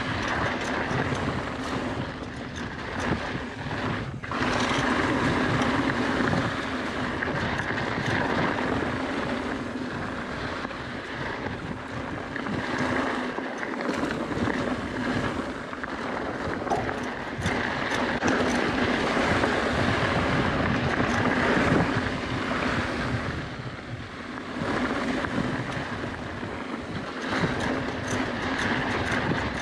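Mountain bike rolling fast over a rocky dirt trail: tyres crunching on gravel, with frequent clicks and rattles from the bike over bumps and wind rushing over the microphone.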